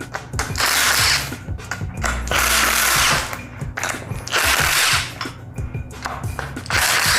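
A power tool, such as a cordless ratchet or impact driver, running in four short bursts, backing out the oil pan bolts on a Mazda 1.8 BP engine.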